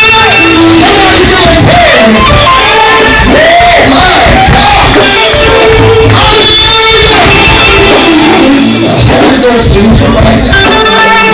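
Loud live gospel praise music: voices singing over a band.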